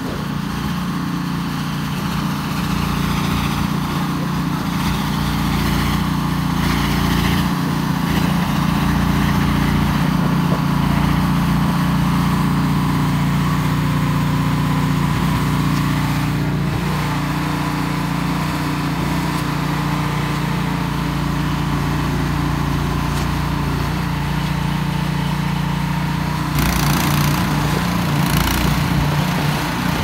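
Cub Cadet 3X 30 HD three-stage snow blower running steadily under load, its single-cylinder engine humming as the augers take in snow and the chute throws it. Near the end the sound turns louder and harsher.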